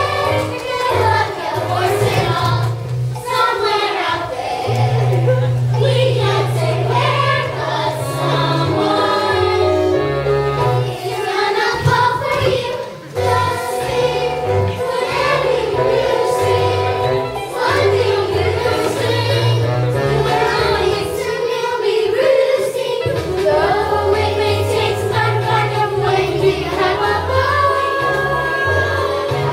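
A song sung by several voices together, like a choir, over instrumental backing with a moving bass line.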